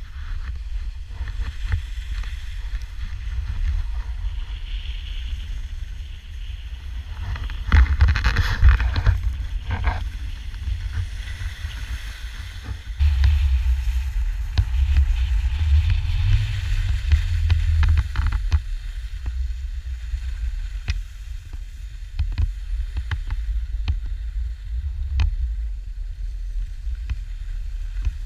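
Wind rumbling on a moving action camera's microphone while skiing downhill, with skis scraping over groomed snow and a few short clicks. The scraping and rumble grow louder about eight seconds in and again from about thirteen to eighteen seconds.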